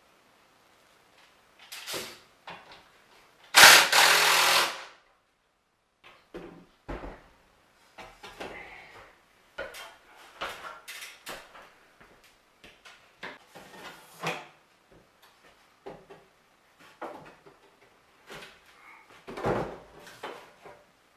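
Irregular knocks, scrapes and clatters of hand tools against wood as a wooden support post under a staircase is worked loose. A loud harsh noise lasts about a second about four seconds in, and a loud knock comes near the end.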